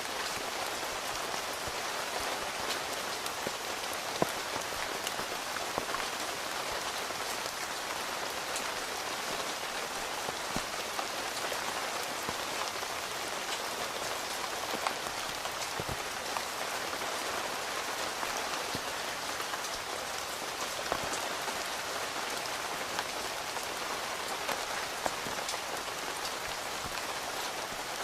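Steady rain falling on a tent's fabric, a continuous hiss with scattered sharp ticks of single drops, one louder drop about four seconds in.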